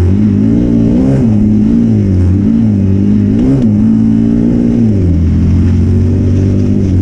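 Honda CRF250L's single-cylinder four-stroke engine pulling along a dirt track. Its pitch rises and falls with the throttle for the first five seconds, then holds steady.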